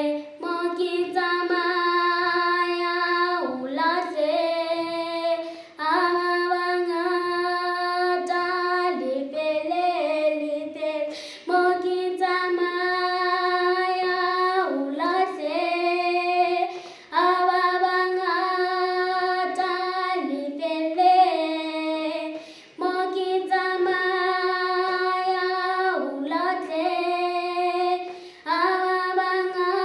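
A young girl singing solo and unaccompanied in Sesotho, in long held notes, phrase after phrase with short breaths between.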